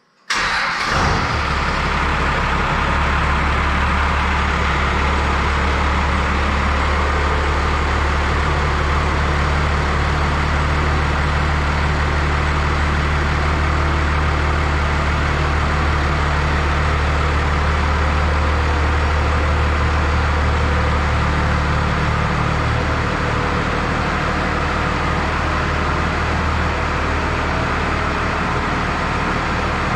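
Dodge W250 pickup's engine running steadily with a deep low hum, cutting in abruptly just after the start.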